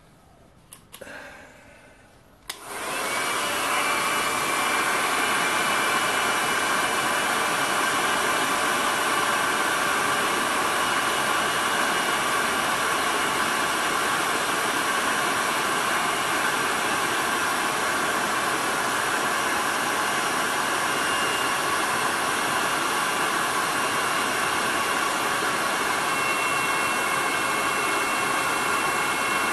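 Handheld hairdryer switched on about two and a half seconds in, then running steadily: an even rush of air with a faint steady whine. Its hot air is heating an aluminium lathe pulley so that it expands and loosens on the spindle.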